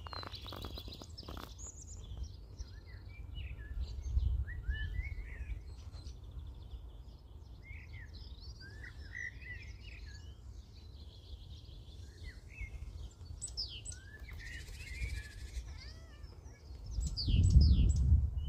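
Garden birds singing and chirping in many short, quick phrases. Under them runs a low rumble that swells near the end.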